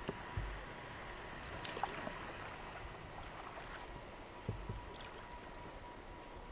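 River water running, with a few short knocks and two low thumps, as from a kayak and paddle on the current.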